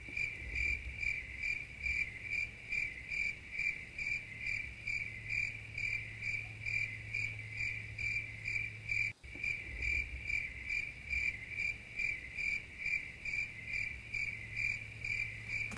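Cricket-chirping sound effect: an even train of high chirps, about three a second, over a low hum. It is the stock 'crickets' gag for an awkward silence. It starts suddenly, drops out for an instant about nine seconds in, and cuts off suddenly.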